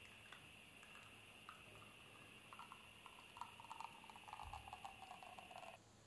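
Faint trickle and patter of espresso streaming from the bottomless portafilter of a La Pavoni Professional lever machine into a glass, over a faint steady hiss. The patter grows busier about halfway through, then everything cuts off abruptly just before the end.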